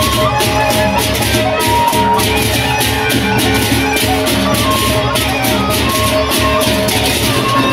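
Sasak gendang beleq gamelan ensemble playing. Many pairs of bronze hand cymbals clash in a fast, steady rhythm over drums and a low rumble, with steady pitched bronze notes sounding through.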